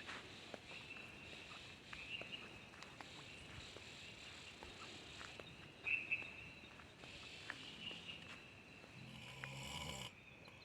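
Night-time forest insects keep up a faint, steady high chirring, with scattered soft clicks and a louder chirp about six seconds in. About nine seconds in comes a brief low, rough sound.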